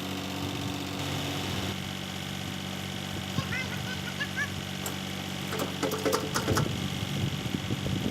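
An engine idling steadily, its pitch shifting slightly about two seconds in. A few goose honks come through about three and a half seconds in, and there are some light clicks near the end.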